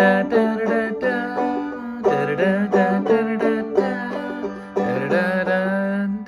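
Banjo played clawhammer style in the key of G, brushing and plucking chords that move between G and D, with the open strings ringing under each stroke.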